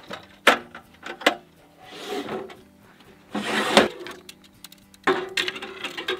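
Gear being handled at a truck's spare-tire carrier: sharp knocks as a tire-mounted folding table is flipped down, then scraping as a fly-rod tube is opened and the rod sections slide out, with another knock about five seconds in. Soft background music runs underneath.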